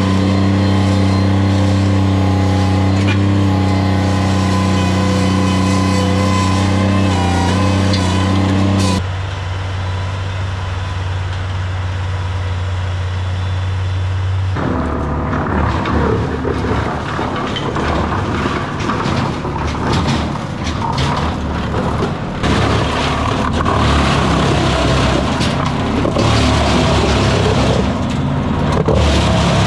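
A large engine running steadily. It breaks off abruptly about nine seconds in, and from about halfway through a rougher, uneven machine noise takes over.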